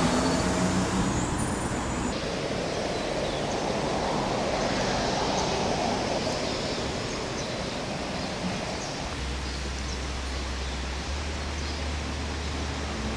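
Steady outdoor engine and traffic noise. A passing vehicle swells about four to six seconds in, and a low, even engine hum sets in about nine seconds in.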